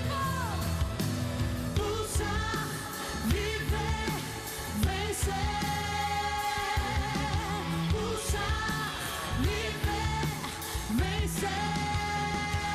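Woman singing a gospel pop song over band accompaniment with a steady drum beat. She holds long notes in the middle and near the end.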